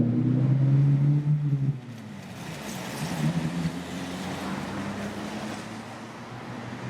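A loud, steady low machine hum that drops to a quieter, wavering hum after about two seconds, over general background noise.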